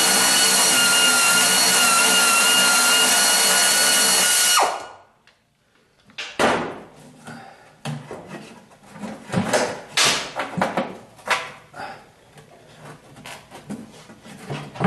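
Pneumatic air ratchet running with a steady high whine as it backs out a canister mounting bolt, cutting off suddenly about four and a half seconds in. After a brief silence come scattered clicks, knocks and rattles of metal parts and tools being handled.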